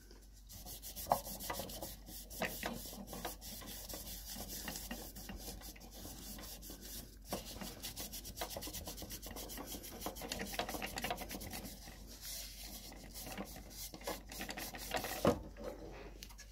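A paper tissue dampened with rubbing alcohol wiped quickly back and forth over the textured black plastic of a Ford Focus dashboard storage lid: a continuous scratchy rubbing made of rapid short strokes.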